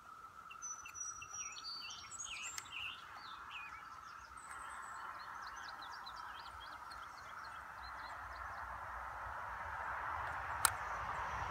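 Faint birds chirping over steady outdoor background noise that swells toward the end, with one sharp click near the end.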